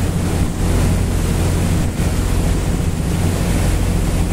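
Passenger ferry under way: a steady low engine drone under the rush of water along the hull and wind buffeting the microphone.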